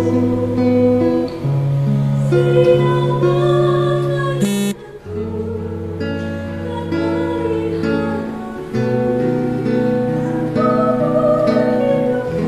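Live worship song: an acoustic guitar played through a small amp, with keyboard and a woman singing held, wavering notes. A short click and brief dip in the music come a little under five seconds in.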